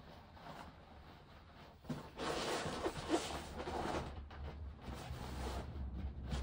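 Rustling and rubbing of gi pants fabric being worked up over a grappling dummy's legs, with a thump about two seconds in, then a couple of seconds of louder rustling.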